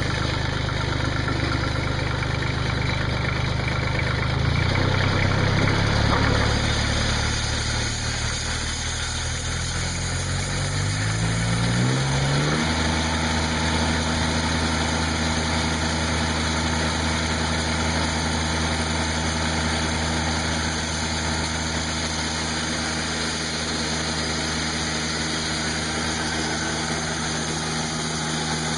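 The sawmill's Kubota diesel engine of about 30 horsepower, just started and running. Between about four and twelve seconds in, its pitch climbs in steps as it is throttled up, then it runs steadily at the higher speed.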